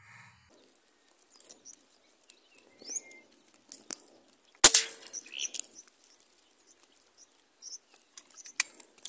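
Birds chirping in short calls and glides over an open field, with a few light clicks. There is one loud sharp crack about halfway through.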